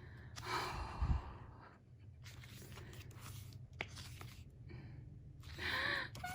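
Photobook pages being turned and handled: soft paper rustles, with a thump about a second in and a sharp click a little before the end. A short vocal sound near the end.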